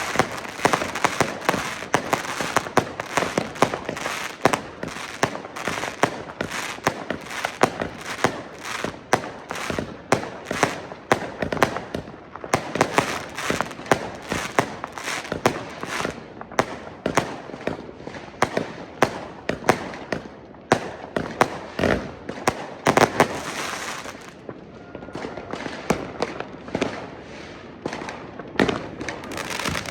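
Consumer New Year's Eve fireworks and firecrackers going off all around, with many irregular bangs and crackles overlapping. They come in a dense stream, thinning a little in the last few seconds.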